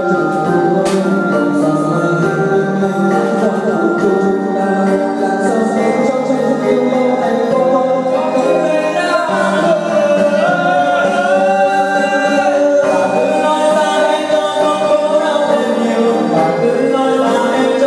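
Karaoke: a man singing into a handheld microphone over an instrumental backing track of held keyboard-like notes. The sung melody comes through most clearly about halfway through.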